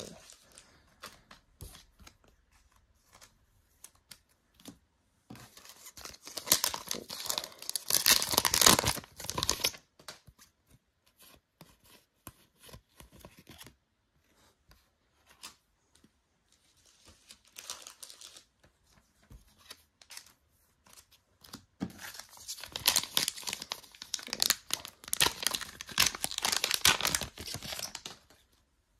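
Foil trading-card booster packs torn open and crinkled, in two long bursts of tearing and rustling about twenty seconds apart. Light clicks and rustles of cards being handled come in between.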